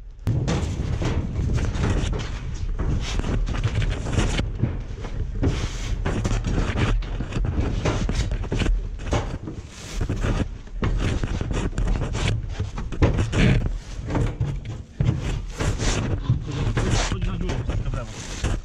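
Constant close rustling and scraping of a protective mesh veil against a head-mounted camera, over a low rumble of wind on the microphone.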